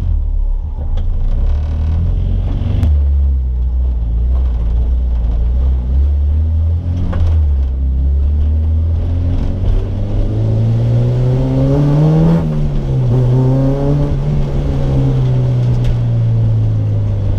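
Honda K20 inline-four in a stripped EG Civic race car, heard from inside the bare, caged cabin while driving. The engine pulls at low revs, then rises in pitch from about ten seconds in to a peak near twelve seconds, drops back and holds a steady note.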